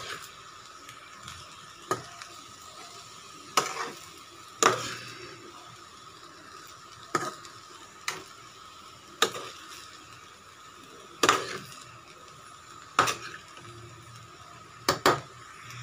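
Steel slotted spoon scraping and knocking against a non-stick frying pan as fried rice is stirred and tossed, about a dozen strokes at irregular intervals, two close together near the end. Under it, a low steady sizzle of the rice frying.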